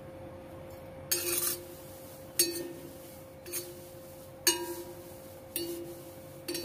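Spatula stirring dry kasuri methi (dried fenugreek leaves) in a cast iron kadhai. Each stroke is a short scrape and rustle against the pan, coming about once a second as the leaves are kept moving while they dry-roast on low heat.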